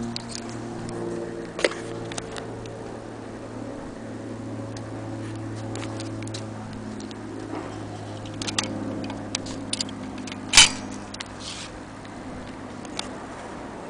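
Scattered small mechanical clicks and ticks, with a louder sharp snap about ten and a half seconds in, over a steady low hum.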